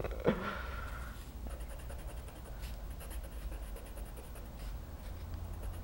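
A pen scratching on paper fixed to a wall in quick, evenly repeated drawing strokes. A short voice sound comes just after the start.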